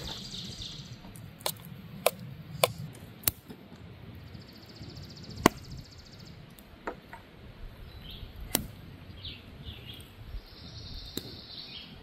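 A scattering of sharp clicks and taps, about half a dozen, with faint bird chirps.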